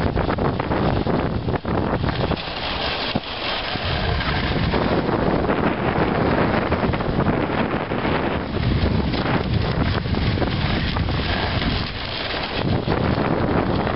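Steady wind buffeting the microphone as a dog sled travels over snow.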